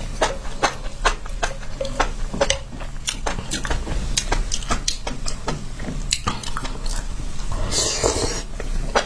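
Close-miked chewing of spicy enoki mushrooms: a steady run of short, wet clicking bites, two or three a second, with a longer hiss about eight seconds in, over a faint steady hum.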